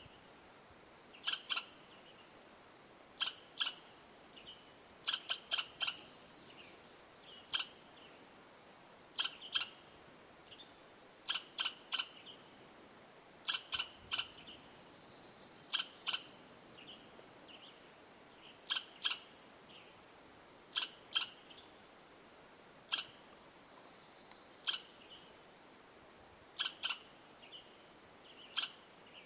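Sharp, high chip calls from a small animal, one at a time or in quick pairs, repeating every second or two.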